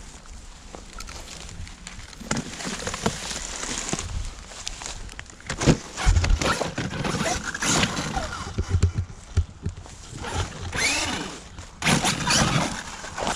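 Battery-powered radio-controlled car's electric motor whining, rising and falling in pitch as it is driven, among several short knocks and thumps.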